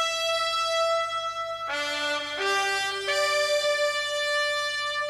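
Brass band, trumpets and trombones, playing slow, long-held notes. The chord changes a little under two seconds in and twice more over the next second and a half.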